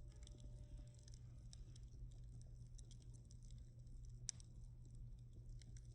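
Bonfire crackling faintly: scattered small pops and ticks, with one sharper crack about four seconds in, over a low steady hum.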